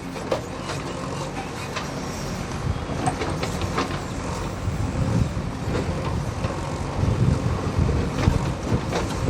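Backhoe loader's diesel engine running steadily, with scattered light knocks or clanks.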